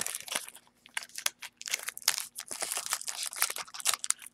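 Trading-card pack wrappers being torn open and crinkled by hand: a run of irregular sharp crackles, in gusts with short pauses.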